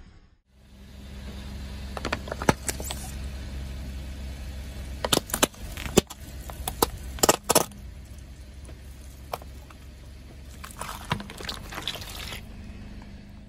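A car tyre rolls slowly over toothpaste tubes and balloons filled with toothpaste, with a low engine hum under it. Several sharp pops and cracks come between about two and eight seconds in as the tubes and balloons burst. A wet crackling squelch follows near the end.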